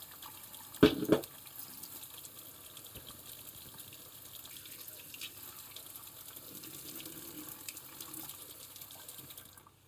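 Kitchen tap running a steady stream into a stainless steel sink while a small brass pipe fitting is rinsed under it. Two sharp knocks come about a second in, and the water sound cuts off near the end.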